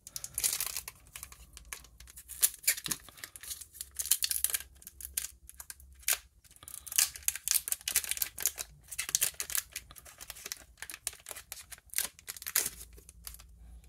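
One Piece card game booster pack wrapper being crinkled and torn open by hand: a run of irregular sharp crackles and rips in clusters.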